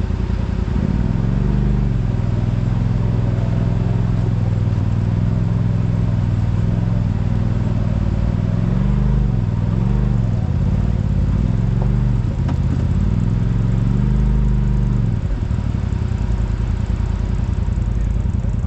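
Polaris RZR side-by-side engine pulling as it drives. Its pitch rises about a second in, swings up and down several times in the middle as the throttle goes on and off, then drops near the end.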